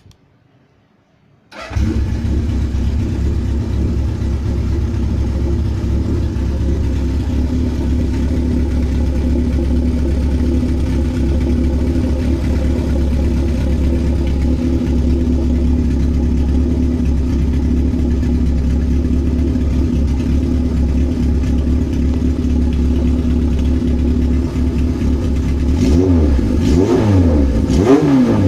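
1976 Kawasaki KZ900's four-cylinder engine starts suddenly about two seconds in and settles into a steady idle while it warms up for carburetor tuning. Near the end it is revved up and down a few times.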